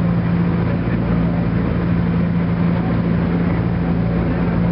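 Steady engine drone of a lake cruise boat under way, a constant low hum with the rush of noise around it.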